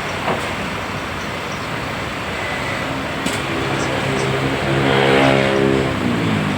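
A motor vehicle's engine drone comes in about three seconds in over steady traffic noise, swells, then eases off near the end.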